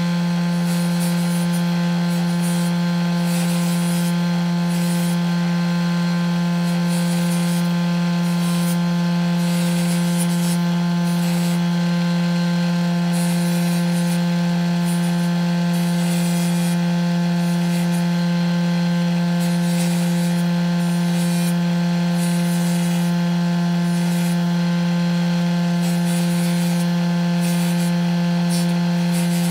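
A motorized spindle machine runs with a steady, even hum. Short scraping rubs come and go on top of it as leather card-holder pieces are pressed against the spinning spindle, one after another.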